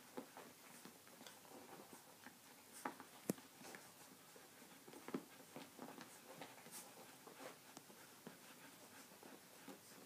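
Faint soft clicks and small rustles of two-week-old Briard puppies nursing at their mother, with one sharper click about three seconds in.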